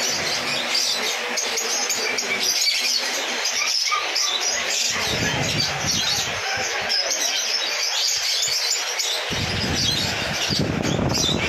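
Many small caged birds chirping and chattering together in a dense, continuous chorus. A low rumble joins about nine seconds in.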